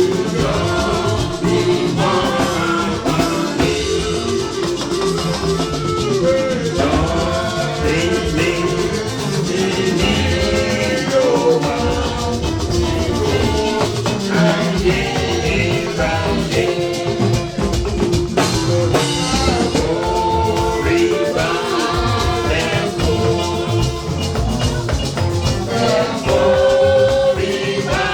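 Church hymn sung by voices over drums and shakers, a lively steady beat throughout.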